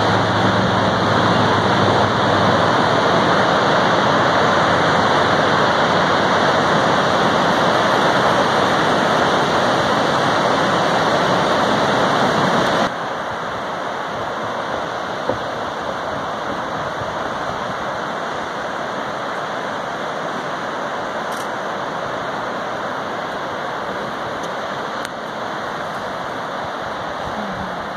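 Steady rush of ocean surf breaking along a rocky shore. It drops to a quieter, even wash about halfway through.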